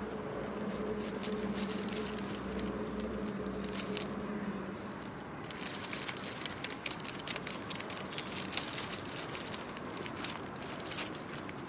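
Hedgehog foraging close by, a stream of small rustles and crackling clicks that grows busier about halfway through. A steady low hum underneath stops about halfway.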